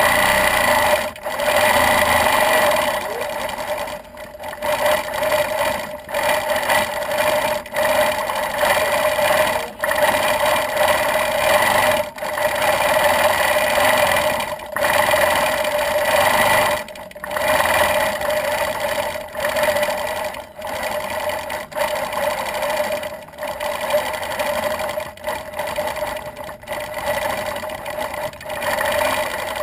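Gammill longarm quilting machine stitching, its motor and needle running with a steady whine that dips briefly every couple of seconds.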